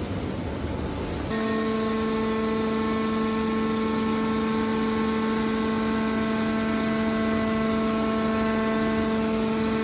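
Hydraulic power unit of a scrap-metal baler running: a steady, even whine that sets in abruptly about a second in, over a noisy mechanical rumble, as the baler's press lid swings shut.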